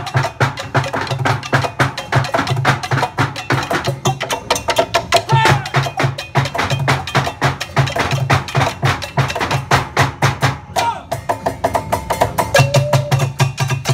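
Found-object percussion ensemble playing a fast, driving rhythm: dense clattering strokes of sticks and long poles over repeated deep thumps from drummed plastic barrels. A few short sliding tones cut through the beat.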